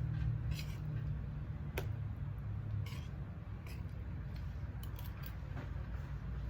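A person eating rice and curry: scattered short clicks and small mouth sounds, about eight in all, over a low steady hum.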